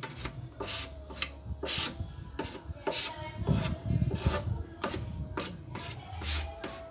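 Plastic spatula scraping wood putty onto an MDF speaker box in short, repeated strokes, about a dozen of them at an uneven pace. A few low thumps come near the middle.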